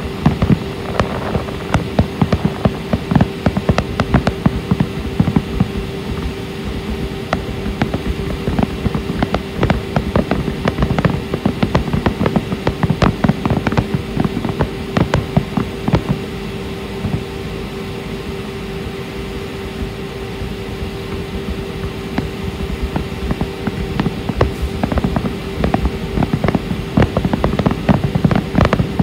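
Fireworks going off in rapid, continuous volleys of bangs and crackles, thinning out for a few seconds past the middle, over a steady hum.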